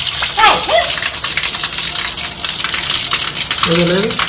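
Water running in a steady, splashing flow. Short voice sounds break in briefly about half a second in and again near the end.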